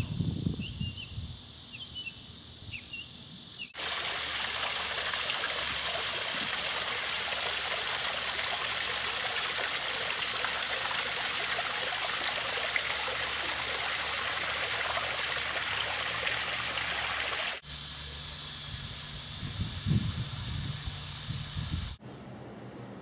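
Small backyard rock waterfall spilling over a stone ledge into a pond: a steady splashing rush that starts abruptly a few seconds in and cuts off abruptly about fourteen seconds later.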